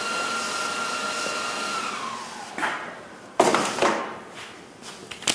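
Small electric motor whirring with a rush of air, then winding down in pitch about two seconds in. A loud metal clunk follows, with a few lighter knocks near the end.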